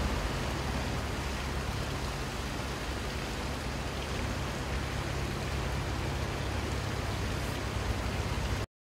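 Canal boat's engine running steadily with the boat under way: a steady low rumble beneath a rushing hiss. It cuts off suddenly near the end.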